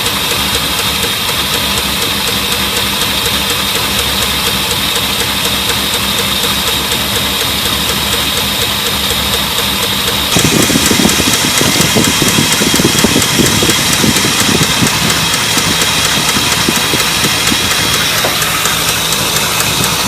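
Ford 390 FE V8 idling with a rapid, even lifter tick. About halfway through it gets louder and fuller.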